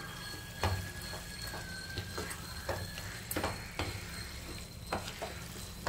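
A wooden spatula stirs chicken pepper fry in a nonstick pan, with short scraping strokes about every half second over a low sizzle of masala and curry leaves in oil.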